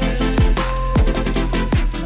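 Electronic background music with a steady beat of deep bass-drum hits that drop in pitch, about two a second.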